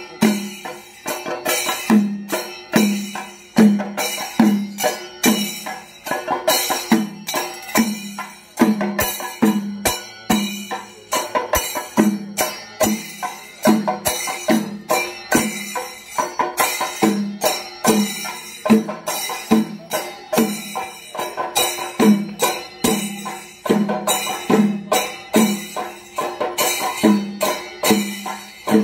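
Kerala chenda drum ensemble (chenda melam) played with sticks: fast, dense stick strokes over a steady beat of heavier strokes about one and a half a second, with metallic clashing on top.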